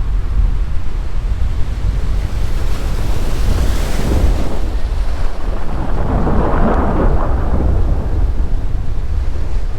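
Strong onshore wind buffeting the microphone over ocean surf, with a louder rushing swell about six seconds in as a wave breaks.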